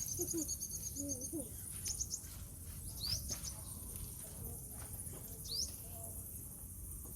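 Small birds chirping in short high calls, with a quick run of chirps at the start and two rising whistles later, over a steady high insect hiss. A few soft low calls sound in the first second and a half.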